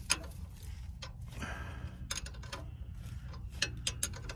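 Scattered light clicks and taps, with a short hiss about a second and a half in, over a low steady hum.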